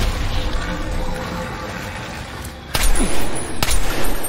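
Action-film sound mix: a low rumble under music, then, a little over halfway through, loud blasts with two sharp gunshot-like cracks and heavy booms.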